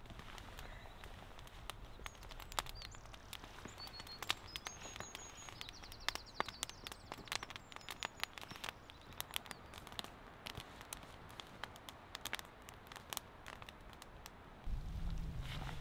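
Open cooking fire crackling with irregular sharp pops, and a few brief high bird chirps a few seconds in. A low steady rumble comes in near the end.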